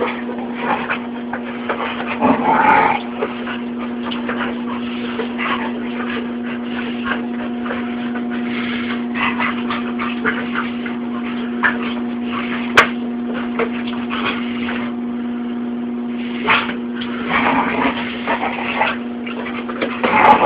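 Dog tussling with a basketball: scraping and knocking of teeth and paws on the ball, with louder bursts of growling about two seconds in and again near the end, and one sharp knock in the middle. A steady low hum runs underneath.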